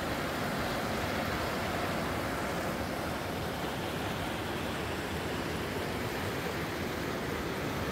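River water rushing over rocks and small rapids, a steady, even rush.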